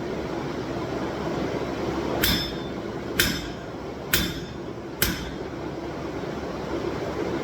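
Hammer striking hot steel on an anvil while forging the tang of a steel cable knife: four blows about a second apart, each with a brief metallic ring. A steady hum runs underneath.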